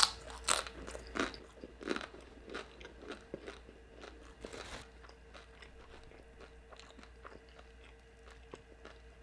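Close-up crunching and chewing of crunchy fried food: several loud crunchy bites in the first two seconds, then softer chewing that fades out by about halfway through.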